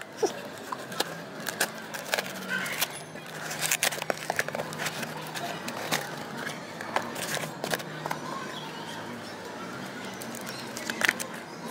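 Cardboard packaging being torn and a small card box opened by hand: scattered crackles, rips and taps of card and paper, over a faint low hum.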